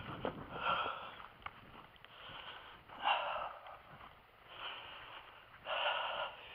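A man breathing hard, with loud breaths every second or two: out of breath and tuckered out from heavy work in heat and humidity.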